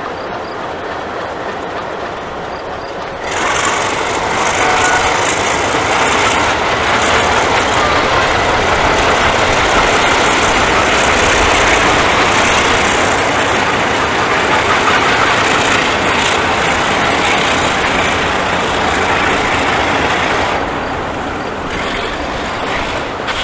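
Alco diesel locomotives passing close by, their engines running with the rumble and clatter of wheels on rail. The sound gets suddenly louder about three seconds in and eases off near the end.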